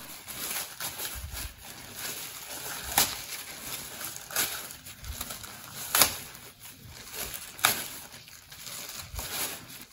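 Clear plastic sheeting crinkling and rustling as it is handled, with irregular sharp crackles every second or two.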